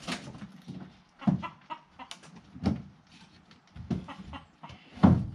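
A chicken clucking amid a series of wooden knocks and bumps as a wooden animal hutch is shoved along a pickup truck's bed. The loudest knock comes about five seconds in.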